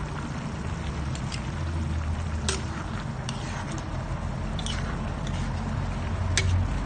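Coconut milk simmering in a metal pan, with a few sharp clicks of a spatula against the pan as stirring begins near the end.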